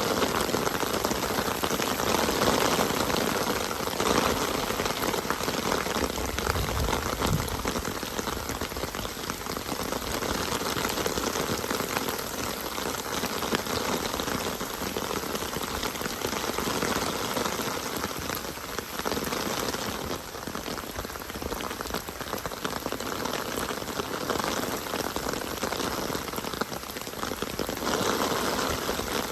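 Steady rain falling and pattering on surfaces, an even hiss of many drops that swells and eases slightly in level.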